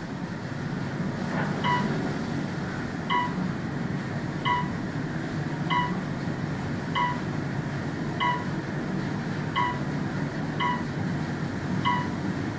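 Otis high-speed elevator car in motion, a steady low hum of the ride, with a short high beep repeating about every second and a quarter.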